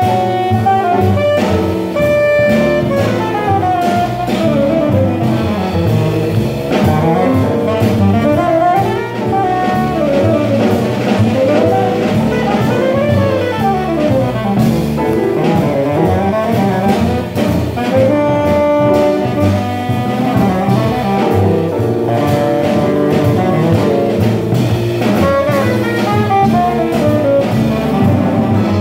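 Live small-group jazz: a saxophone solo in fast, winding runs that rise and fall, over drums and bass.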